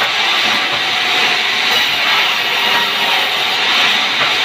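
Sawmill band saw running: a loud, steady hiss with no pauses or changes.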